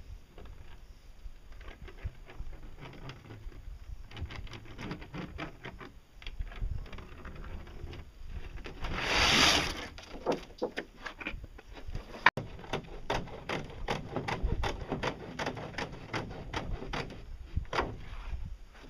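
Handling noise of a stiff fiberglass sheet and cloth: scattered rustles and ticks, a brief loud rustle a little before halfway, a single sharp click, then a quick run of crackles as the sheet is flexed and moved.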